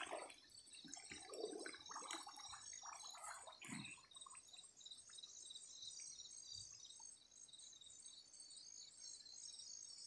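Faint night insect chorus, a steady pulsing chirr, with light splashing and dripping of shallow muddy water in the first four seconds.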